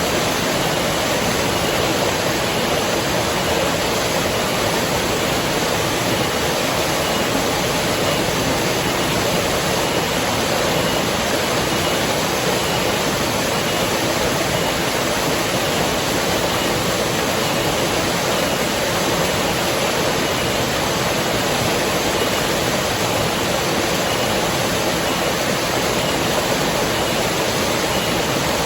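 Flowing river water rushing steadily, a constant even roar with no change in level.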